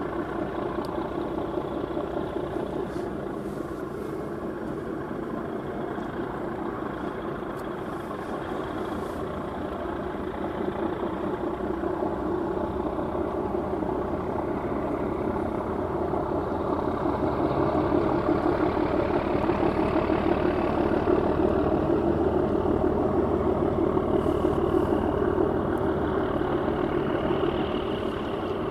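Harbour tug's diesel engines running under load as it pushes against the side of a large sailing ship, a steady engine drone that grows louder about ten seconds in, swells further a few seconds later, and eases slightly near the end.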